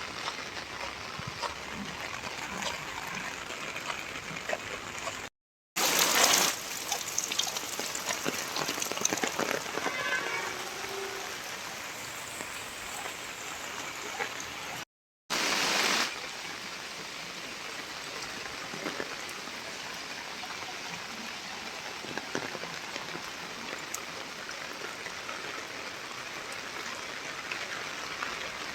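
Steady rain falling, heard as an even hiss. The sound cuts out twice for a moment, about five and fifteen seconds in, and is louder for a second or so after each gap.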